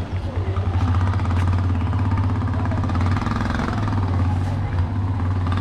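Steady low drone of a motor engine running close by, over general street noise.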